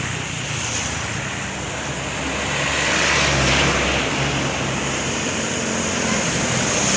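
Road traffic passing close by: engine and tyre noise from a heavy vehicle that grows louder to a peak about halfway through, then eases off.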